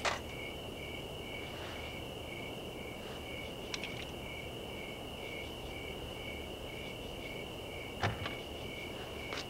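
Crickets chirping steadily in the night, a pulsing chirp of about three a second over a continuous high trill. A sharp click comes about four seconds in, and a louder one about eight seconds in.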